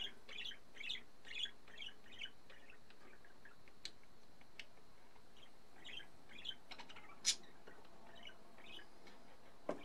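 Pencil drawing a line on a basswood bass guitar body, short scratching strokes about two a second that pause and resume, with a few light clicks, the loudest about seven seconds in.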